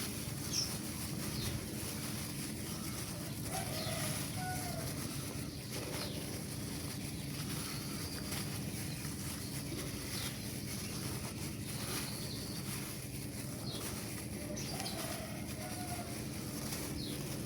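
Steady background noise with a few faint, short bird chirps, in pairs about four seconds in and again near the end.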